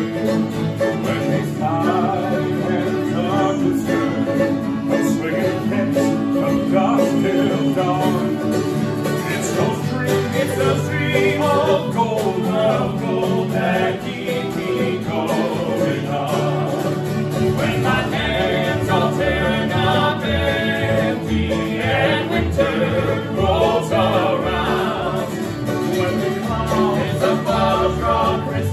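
Live acoustic music: men singing together while strumming acoustic guitars. A low, regular pulse joins the accompaniment about two-thirds of the way through.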